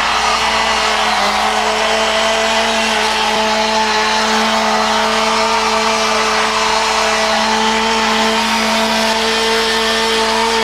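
Two-stroke chainsaw held at full throttle with a steady, unchanging pitch, cutting off suddenly near the end.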